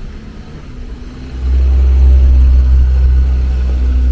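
A compact 4x4 SUV's engine running as it drives past, a low rumble that grows much louder about a second and a half in and stays loud.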